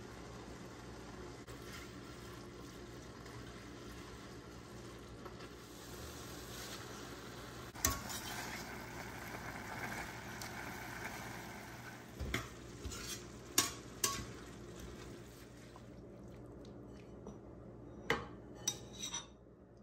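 Beef and arugula sizzling in a stainless steel frying pan while being stir-fried with a metal slotted spatula, with sharp clinks as the spatula strikes the pan. The sizzle is strongest in the middle and dies down near the end, where a few last clinks sound as the food is scooped out.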